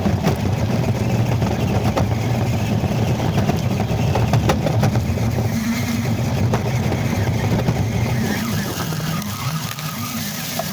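Ford Raptor RC truck driving, with a steady low rumble, scattered clicks and some skidding, and wind buffeting the microphone.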